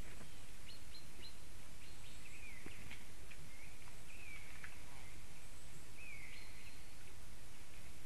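Steady microphone hiss from a forest nest camera, with scattered small-bird calls: short chirps and several downward-slurred whistles.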